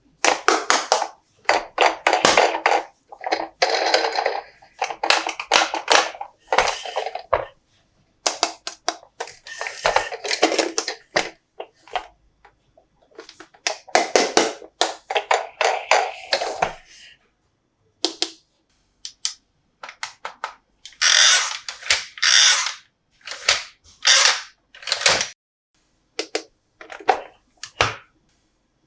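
Plastic toy parts and packaging being handled: irregular crinkling and clicking in bursts with short pauses, a longer run in the first half and separate short bursts later.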